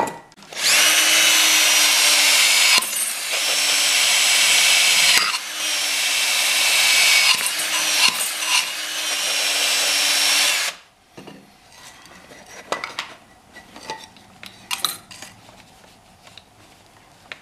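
Cordless drill spinning a carbon steel wire wheel brush against an aluminum boat propeller blade, scouring the surface clean for brazing: a steady motor whine under harsh scratching, in three runs with short breaks, stopping about eleven seconds in. Quieter clicks and knocks of handling the prop and drill follow.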